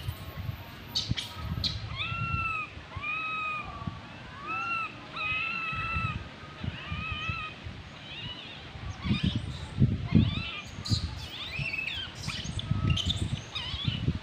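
Infant macaque whimpering: a string of short arched coo calls about a second apart, turning more broken and squeaky about halfway through. These are the distress calls of an infant kept from suckling. Low rumbles come and go in the second half.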